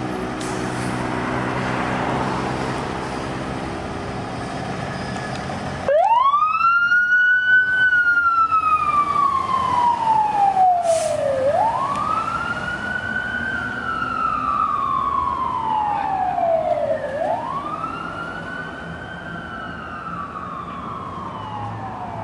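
A fire engine's engine runs as the truck pulls away. About six seconds in its siren starts, and it goes through three wails, each rising quickly and falling away slowly. The siren grows fainter as the truck drives off.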